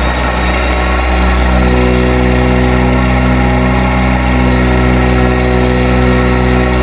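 Case 580B backhoe's engine running steadily; the note is rough and unsettled for about the first second and a half, then holds even.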